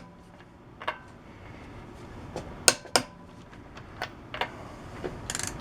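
Click-type torque wrench set at 130 foot-pounds, working on the lug nuts: a few sharp metallic clicks and clinks from the wrench and its socket. The wrench clicks before the nuts turn, a sign that they were tightened past 130 foot-pounds.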